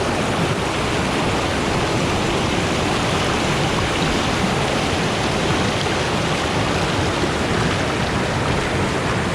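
Steady rush of a river cascading over rocks at a small waterfall, loud and even throughout; it cuts off suddenly at the end.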